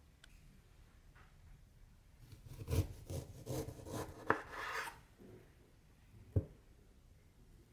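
Kitchen prep on a daikon radish: a few seconds of scraping strokes with a sharp knock about four seconds in, then a single dull thump about six seconds in.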